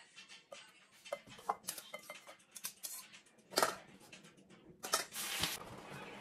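A fork clinking and scraping against a white ceramic bowl while boiled sweet potato slices are mashed, in a run of scattered clicks and knocks. There is a louder knock a little past halfway and a short scrape near the end.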